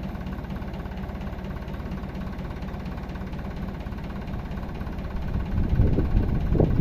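Farm tractor engine idling with a steady, rapid low pulse. About five and a half seconds in, a louder, uneven low rumble comes in over it.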